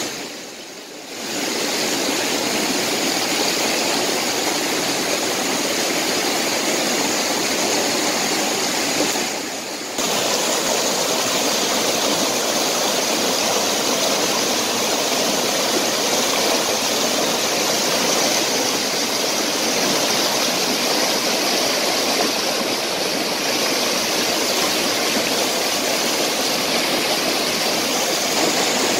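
Shallow rocky stream rushing and splashing over stones in a steady noise, briefly dipping in loudness about a second in and again near ten seconds in.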